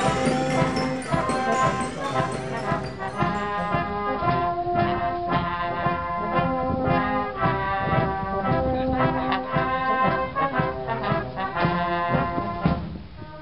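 Brass band music, with tubas and trombones playing sustained chords; the sound becomes duller about four seconds in.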